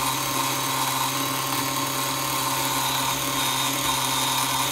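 24-volt DC geared motor running at full voltage with a steady whine while its pulley is gripped by hand, which does not stall it. The gearbox sounds a bit crunchy and noisy, which the owner thinks may mean it needs grease.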